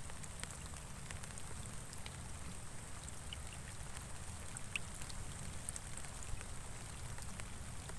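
Light rain falling on open water, a soft even hiss with scattered small drop ticks over a steady low rumble.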